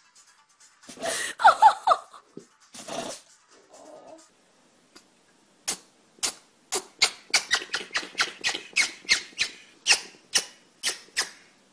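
An animal sneezing: a couple of squeaky sneezes in the first few seconds, then a fast run of many short, sharp sneezes, about three a second, through the second half.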